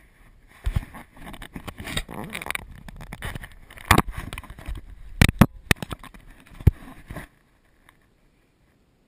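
Rumbling wind and handling noise on a GoPro microphone aboard a kayak, broken by several sharp knocks. The sound cuts out abruptly about seven seconds in, leaving near silence.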